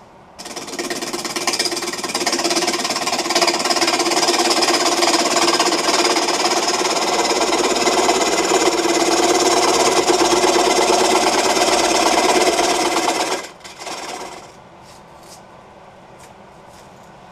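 Gouge cutting into a spinning, out-of-round Russian olive bowl blank on a wood lathe: a loud, rapid rhythmic clatter from the interrupted cut. It starts about half a second in and stops about thirteen seconds in.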